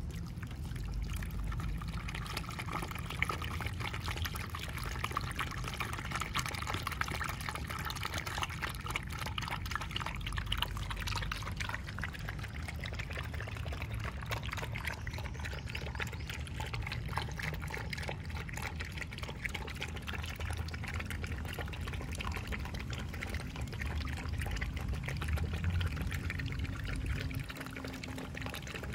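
Milk poured from a plastic bottle into a plastic bowl, then four puppies lapping up the milk from the bowl together.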